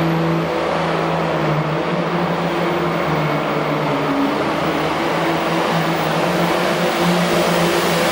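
International 1086 Super Farm pulling tractor's turbocharged diesel engine running flat out under load as it drags the pulling sled. The sound is steady and loud, with a pitch that wavers a little.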